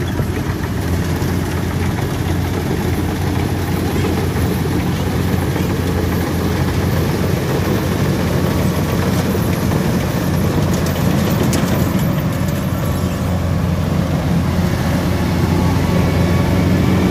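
Rice combine harvester engine running steadily under load, a loud even drone that swells slightly toward the end.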